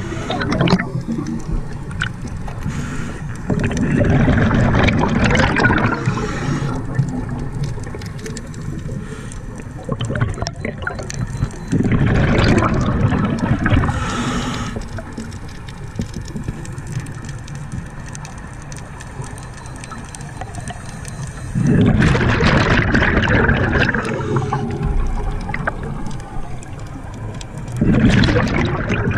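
Scuba diver breathing through a regulator underwater: a gurgling rush of exhaled bubbles every several seconds, with quieter stretches between breaths.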